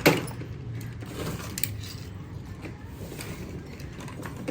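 Toy cars being handled: one sharp knock right at the start, then scattered light clicks and clinks.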